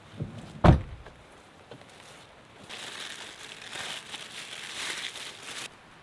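A sharp knock about a second in, then about three seconds of plastic crinkling and rustling as dog food is scooped out of a bag into a bowl.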